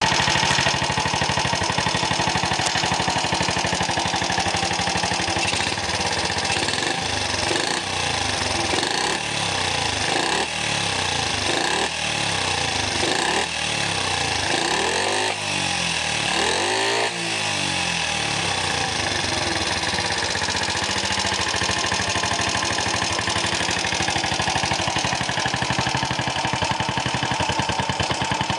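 Honda Super Cub-type single-cylinder four-stroke motorcycle engine running through a short aftermarket muffler. It idles steadily, is revved up and back down several times in quick succession through the middle stretch, then settles back to idle.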